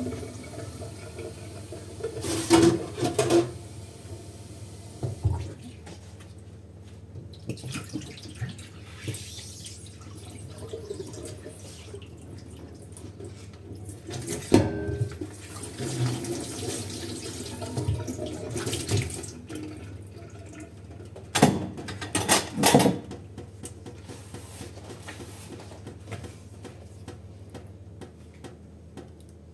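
Hand-washing dishes at a kitchen sink: water splashing and running over the dishes. A few louder clatters of dishes knocking together come near the start, about halfway through, and about three-quarters of the way through.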